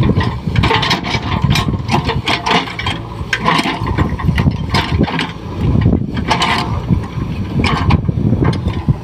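JCB 3DX backhoe loader's four-cylinder diesel engine running under load as the backhoe digs, with repeated knocks and clanks from the bucket and arm working the soil.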